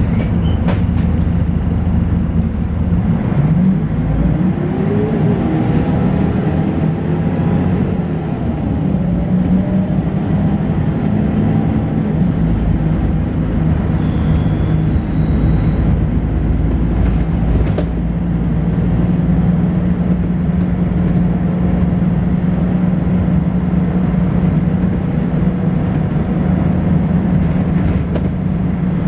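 Volvo B10BLE bus engine pulling hard, its note rising and dropping back as the ZF automatic gearbox changes gear, then running steadily under load. A thin, high-pitched whine comes in about halfway through.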